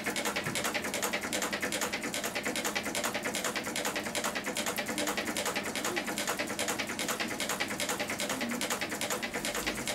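Meccano-built twin-cylinder Stirling engine running steadily, giving a rapid, even clicking as its displacers land at each end of their travel.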